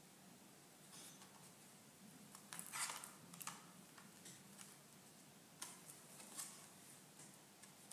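Paper rustling as a slim softcover book is opened and its pages are turned and smoothed by hand: a few short, soft rustles, the loudest about three seconds in.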